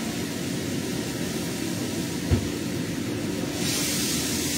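Steady hum of a kitchen exhaust fan, with a single low thump about two seconds in. From about three and a half seconds in, a loud sizzling hiss starts as food is dropped into hot oil in a pan on the gas burner.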